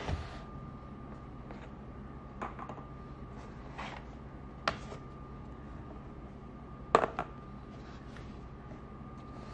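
Art supplies being handled on a desk: a few scattered taps and knocks as a drawing board is shifted, then a sharper double clink about seven seconds in as a paint palette is picked up. A faint steady hum lies underneath.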